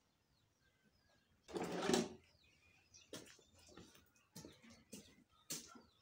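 Plastic water containers being handled: one brief loud clatter as a jerrycan and watering can are picked up about a second and a half in, then a few light knocks and footsteps, with faint bird chirps in the background.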